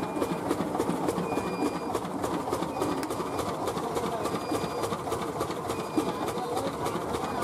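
Poha (flattened rice) making machine running: a heavy roller turning in a round pan and pressing rice, with a steady dense rattle of grains against metal. A faint short squeak recurs about every second and a half.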